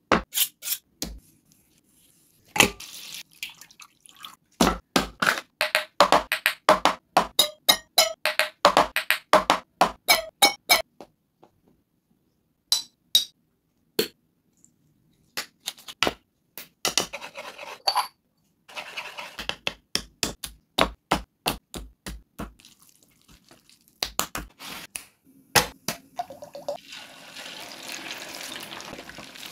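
Kitchen handling sounds: many short clicks and knocks of a wooden bowl and utensils during the marinating, in clusters with silent gaps between them. About 27 seconds in, a steady sizzle sets in from chicken legs deep-frying in hot oil in a clay pot.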